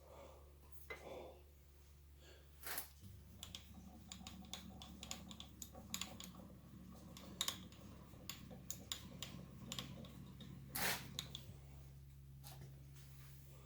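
Faint, irregular clicking and ticking of a surface grinder's table and cross-feed being cranked by hand during a dial indicator sweep over the magnetic chuck, with a few louder knocks. A low steady hum comes in about three seconds in.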